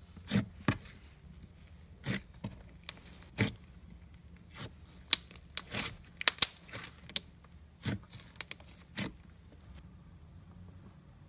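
Slime being kneaded and pressed by hand: irregular sharp pops and crackles as it is squeezed, a dozen or so, stopping near the end.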